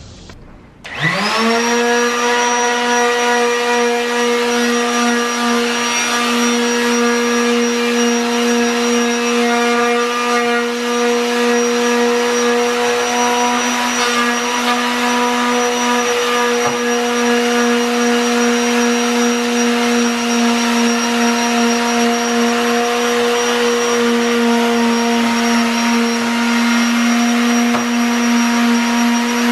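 Electric power sander starting about a second in, its motor quickly rising to speed, then running at a steady pitch as it sands the painted wooden trim of a range hood.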